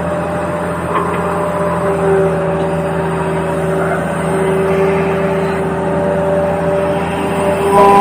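Remote-control toy vehicle running, a continuous mechanical whine of several steady tones over a low hum, a little louder near the end.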